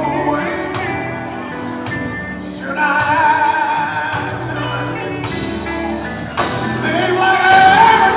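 Male lead gospel vocalist singing live with a band, drums and cymbals beneath. The voice swells in about three seconds in with wavering held notes, and grows louder again near the end.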